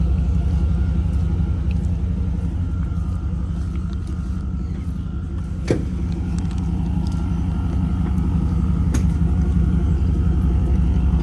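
A motor vehicle's engine running with a steady low rumble, with a single sharp click about halfway through.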